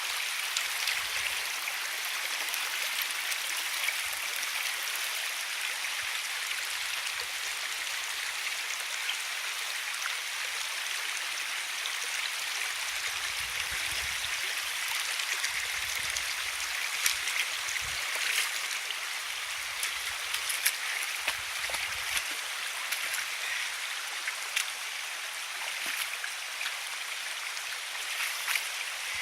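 A shallow river rushing over stones: a steady hiss of running water, with scattered short clicks and a few soft low thumps in the middle.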